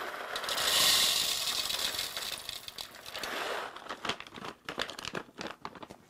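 Whole coffee beans poured from a bag into a Baratza Vario Plus grinder's hopper: a dense rattling patter for about three and a half seconds, loudest about a second in. After that come scattered clicks and rustles of the bag.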